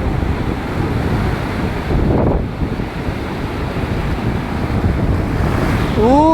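Waves washing on a beach, with wind buffeting the microphone. Near the end a voice starts a long, held call.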